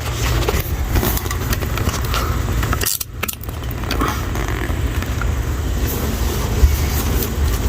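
1950 Ford F1's flathead V8 idling with a steady low rumble, with light rattling and clicking of handled parts over it; the sound cuts out briefly about three seconds in.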